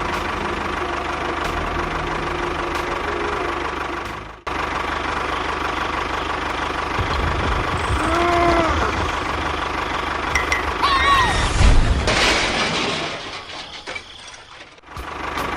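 A small motor running steadily. It cuts out briefly about four seconds in, and short rising-and-falling tones sound twice near the middle.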